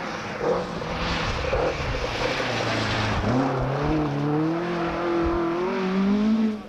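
Ford Escort Mk2 rally car at full throttle, sliding past on loose gravel with its tyres throwing stones. The engine note climbs steadily through the second half as the car accelerates away.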